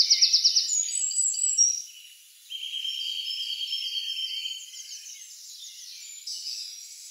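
High-pitched chirping: quick runs of chirps in the first couple of seconds, then a steady buzzing trill for about two seconds, then fainter scattered chirps.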